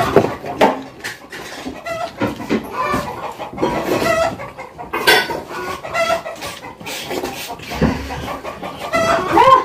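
Short clucking calls from chickens, with steel plates, bowls and utensils clinking and knocking now and then; a rising call near the end.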